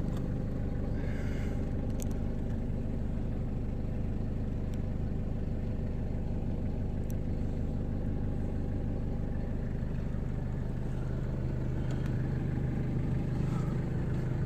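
Toyota 3L 2.8-litre four-cylinder diesel engine of a 1992 Hiace van idling steadily, heard from inside the cab with the engine under the front seat. It gets slightly louder near the end.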